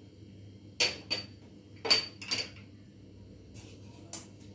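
A steel spoon clinking against a stainless steel mixer jar: about five or six sharp, separate clinks, each with a short metallic ring, the loudest about two seconds in.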